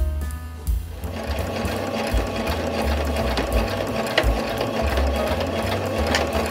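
Domestic electric sewing machine stitching steadily through layers of cotton canvas. It starts about a second in, over background music.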